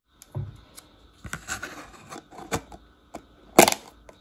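Clicks and knocks of a plastic food tub being handled, ending in the loudest snap about three and a half seconds in as its airtight plastic lid is pressed down.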